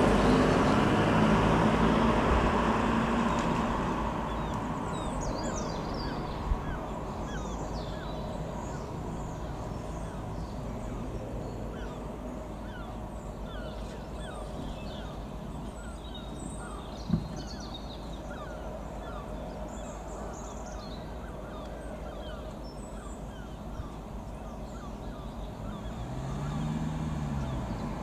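A helicopter flying overhead: its rotor and engine noise fades over the first few seconds as it moves off, then holds as a steady distant drone, and grows louder again near the end as it comes back round. Faint bird calls chirp under it.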